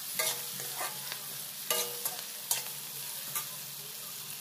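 Chopped onions, cashews and whole spices sizzling in oil and butter in a steel kadhai, stirred with a metal slotted spatula that scrapes and clinks against the pan about once a second.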